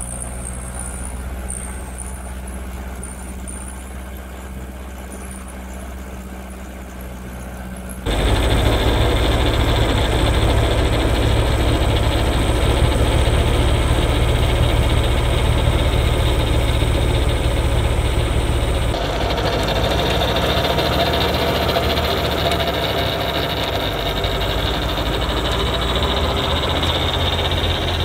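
New Holland L85 tractor's diesel engine running steadily while driving a PTO-driven two-stage snowblower that throws snow. The sound changes abruptly twice, getting much louder about 8 seconds in and shifting again about 19 seconds in.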